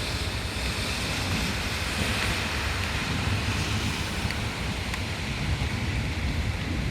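Heavy rain pouring steadily, with wind gusting over the microphone as a low rumble.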